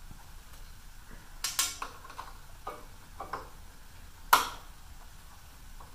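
A Torx wrench and the blade-cover screws on a DeWalt 734 planer's cutterhead, being backed out by hand. Light metal clicks and clinks come one after another, with the sharpest clink a little past four seconds in.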